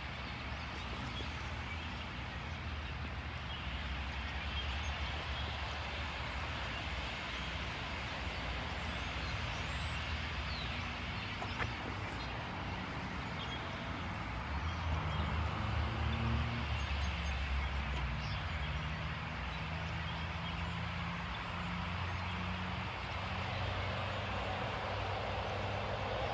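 A vehicle engine hums low and steady; from about 14 seconds in it grows louder and shifts in pitch for several seconds. Over it runs a constant dense chatter from a large murmurating flock of birds.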